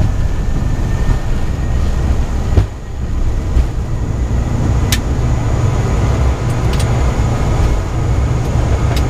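Steady low rumble of an ATR turboprop airliner's twin engines and airframe at high power, heard inside the cockpit, with a few sharp clicks.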